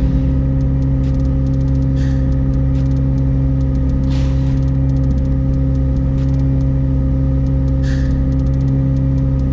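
McLaren 765LT's twin-turbo 4.0-litre V8 running steadily at 2000 rpm, held there for the car's oil-level measurement countdown.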